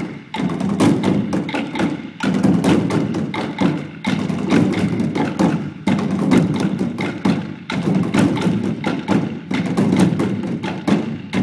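A percussion ensemble drumming a fast, loud groove on black plastic bins with sticks, many strikes at once, in repeating phrases of about two seconds.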